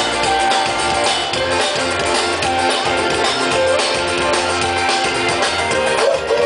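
Live band playing with a steady drum beat and sustained instrument chords, no singing.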